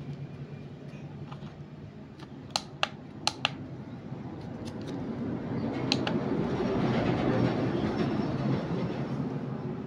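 A handheld plastic electronic TENS massager being handled: four sharp clicks close together about two and a half to three and a half seconds in, then a swell of rubbing and handling noise as the unit is turned over in the hands.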